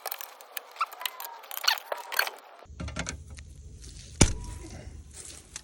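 Metal hand tools clinking and clicking against each other and the car's underside as a wrench is worked on a tight bolt, with one sharp crack about four seconds in.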